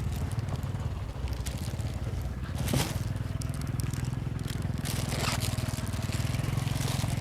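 A vehicle engine idling steadily with a low, even hum, with a couple of faint knocks about three and five seconds in.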